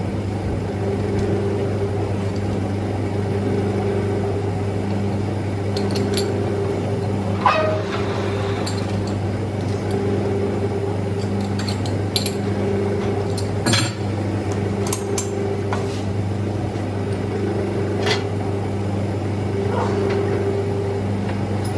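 Manual metal lathe running with a steady hum, with scattered metallic clicks and ticks. There is a brief falling squeal about seven seconds in and a louder knock about fourteen seconds in.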